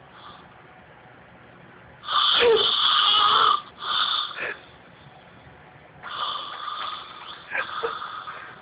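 A woman snoring loudly in her sleep: a long snore about two seconds in, a shorter one straight after, and another long one starting about six seconds in.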